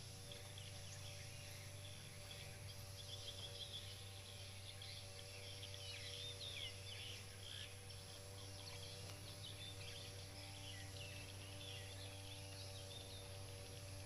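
Faint outdoor ambience: many small birds chirping in quick short calls, densest in the middle, over a steady low hum.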